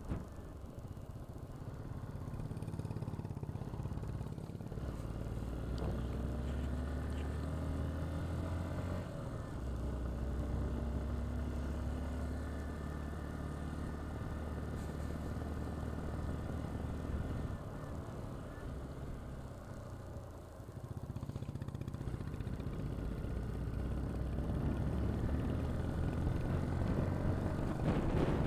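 Hero XPulse 200 single-cylinder motorcycle engine running on the move, its pitch rising and falling with the throttle. Wind noise builds over the last few seconds.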